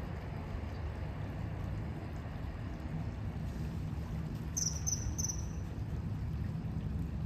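Steady rush of shallow river water flowing over concrete blocks, heavy in the low end. About four and a half seconds in comes a brief burst of high, rapid chirping lasting under a second.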